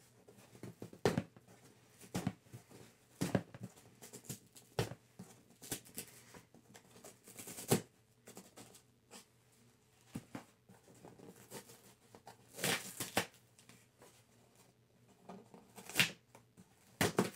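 Package being opened by hand: irregular rustling, crinkling and tearing of packaging, with scattered short clicks and knocks as it is handled.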